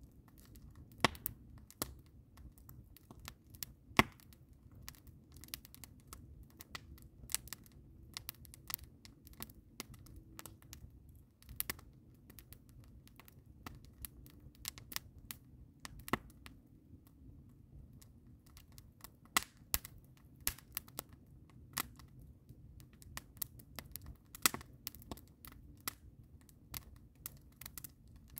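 Wood fire crackling in a steel fire ring, split logs and green evergreen boughs burning: irregular sharp snaps with a few louder pops, over a faint low rumble.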